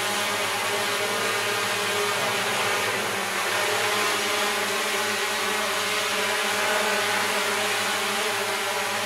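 Small multirotor drone hovering, its propellers and motors giving a steady whine of many layered tones over a hiss.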